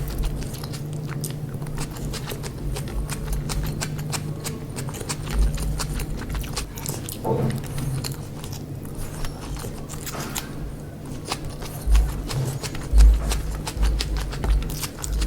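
Close-miked chewing and biting of chicken biryani, with many wet mouth clicks and low uneven thumps.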